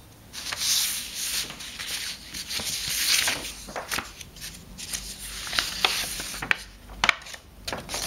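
Large paper chart sheets rustling and crinkling as they are handled and turned over by hand, with a few sharp crackles in the second half.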